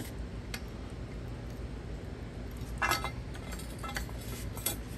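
Light metallic clinks and ticks of a wrench and locking pliers on a strut top-mount nut as it is worked loose, the loudest a short clatter about three seconds in, over a low steady background noise.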